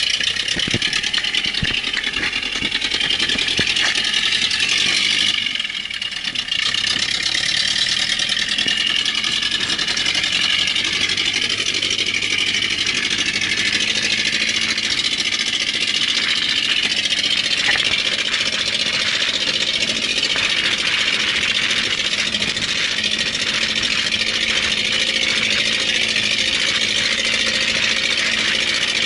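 Open-sided 4x4 passenger truck driving over sand, heard from its rear bed: the engine runs steadily under a loud rush of wind and road noise. The sound drops briefly about six seconds in, then carries on.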